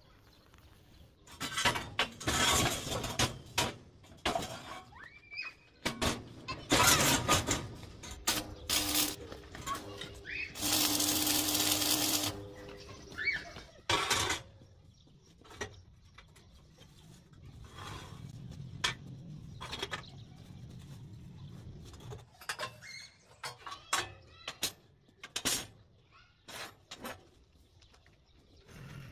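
Steel bar being handled and bent by hand on a welded steel bending jig: irregular metallic clanks and knocks of bar against jig and steel table, with a louder grating metal-on-metal scrape lasting about two seconds near the middle.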